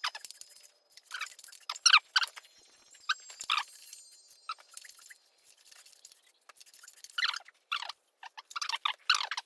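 Irregular short metallic clicks and scrapes from hand work on an engine's timing chain and tensioner, coming in clusters with quiet gaps between.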